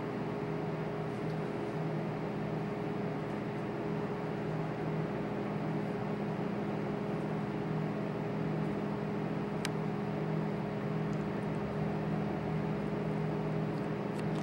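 A steady low mechanical hum with a light hiss, holding a few even low tones throughout. There is a single faint click about ten seconds in.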